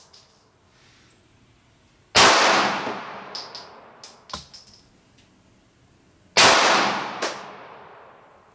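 Two 9mm +P pistol shots, about four seconds apart, from a Glock 19 firing Underwood Xtreme Defender rounds into ballistic gel. Each is a sharp crack with a long echoing decay. Between the shots, ejected brass casings clink and ring as they land.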